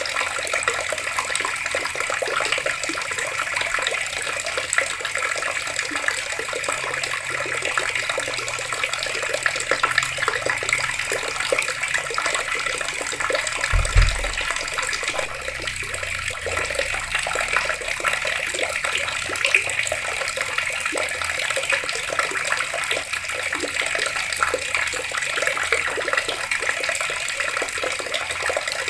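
Water running from taps in a steady, unbroken rush, with one brief low thump about halfway through.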